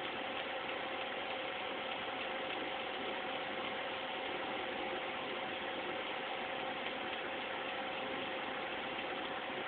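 Computer making an abnormal noise: a steady mechanical grinding whir with two held tones in it, unchanging.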